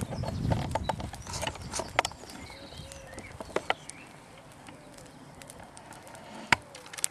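Small fire of sticks and twigs crackling, with scattered sharp pops a second or more apart; the loudest pop comes about six and a half seconds in. A low rumble fills the first second.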